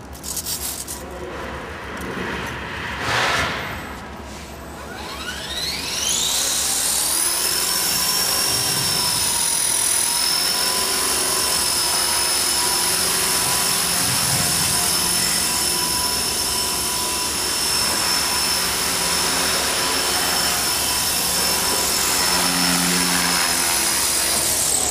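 Small electric RC helicopter's motor and rotor spooling up with a steeply rising whine about five seconds in, then holding a steady high-pitched whine as it hovers, starting to wind down at the very end.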